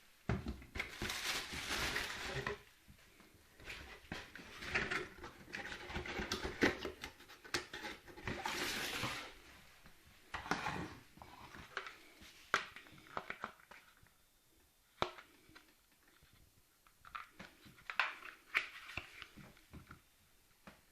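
Handling noises from unpacking and handling an electric kettle: scattered clicks and knocks with several bursts of rustling noise a second or two long, growing sparser in the second half.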